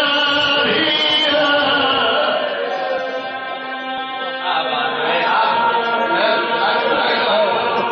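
A zakir's voice chanting verse in long, drawn-out melodic lines through a microphone, holding notes, a little softer for a moment in the middle.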